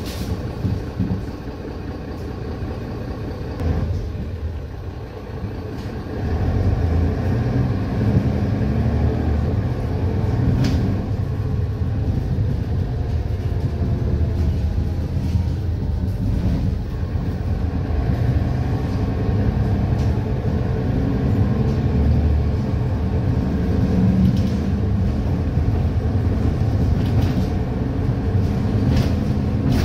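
Mercedes-Benz Citaro bus heard from inside the saloon while driving: steady diesel engine and road rumble that grows louder about six seconds in as the bus accelerates. A faint whine from the engine and its six-speed ZF Ecomat automatic gearbox shifts in pitch, and there are a few short rattles.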